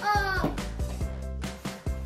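Background music: a sung note slides down at the start, then instrumental backing with a steady beat and bass.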